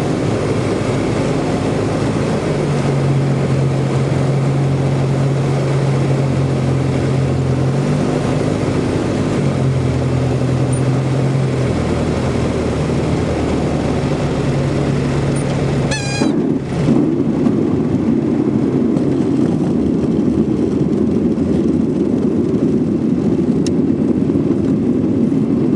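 Jabiru LSA 55 light aircraft's engine and propeller at low power on final approach, the engine note stepping up and down a few times. About two-thirds of the way through comes a brief high squeal at touchdown, then a steady rumble of the wheels rolling on the dirt strip under the idling engine.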